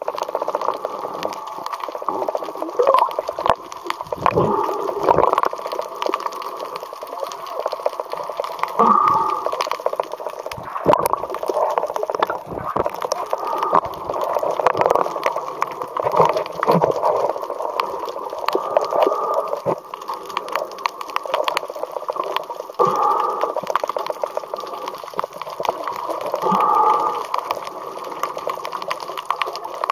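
Muffled underwater sound picked up through a camera's waterproof housing: water sloshing and gurgling, with many small clicks and uneven swells.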